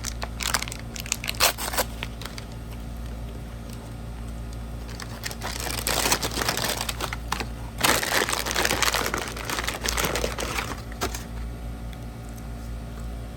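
Paper and plastic fast-food packaging crinkling and rustling as it is handled, in bursts near the start and again from about five to eleven seconds in.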